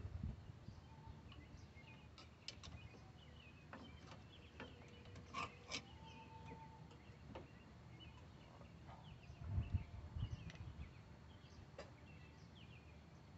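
Quiet work sounds: scattered light clicks and knocks from parts and tools being handled, with a few short high chirps in the background and a dull low thump about ten seconds in.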